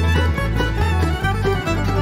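Instrumental background music with a steady beat and a bouncing bass line.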